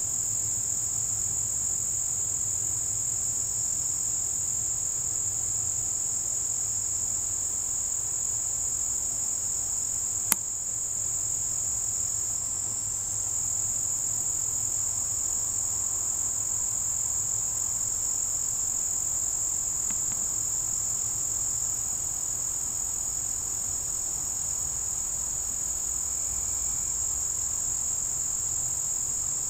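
Steady, high-pitched chorus of insects trilling without a break. A single sharp click about ten seconds in.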